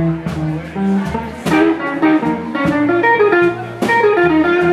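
Live blues band playing an instrumental passage: electric guitar picking a lead over upright bass and drums.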